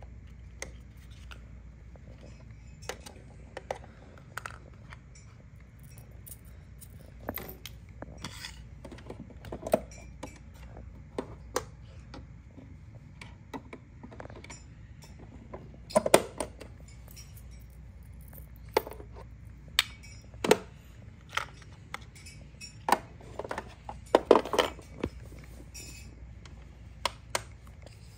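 Small plastic toy kitchen pieces and packaging being handled: scattered light clicks, taps and clinks, with louder clatters about halfway through and again near the end.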